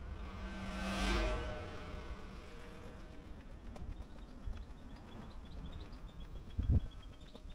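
A vehicle passing, its noise swelling and fading about a second in, followed by a run of faint high-pitched chirps and a short low thump near the end.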